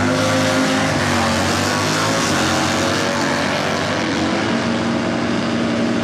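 V-twin drag-racing motorcycles making a pass down the strip, engines running hard and loud throughout.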